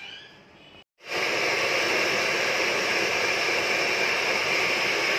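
Handheld hair dryers blowing steadily on wet hair, starting abruptly about a second in.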